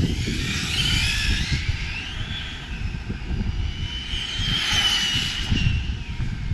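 Arrma Felony 6S RC car's brushless electric motor whining under hard acceleration, its pitch rising and falling twice as the car speeds up and slows. Wind rumbles on the microphone throughout.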